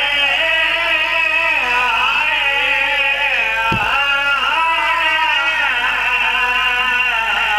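A man's voice singing a drawn-out mourning lament (masaib) through a microphone and PA, the melody sliding and wavering without pause.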